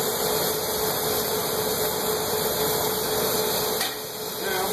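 Steady hiss of a glassblower's hand torch flame over the hum of a glass lathe, running without a break; the level dips briefly about four seconds in.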